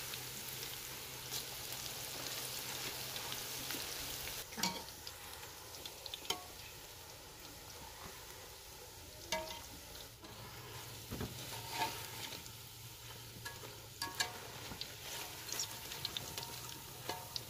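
Gram-flour cauliflower pakoras sizzling steadily as they deep-fry in oil in a metal karahi, with a wooden spoon and a wire-mesh skimmer stirring and lifting them, giving occasional scrapes and knocks against the pan.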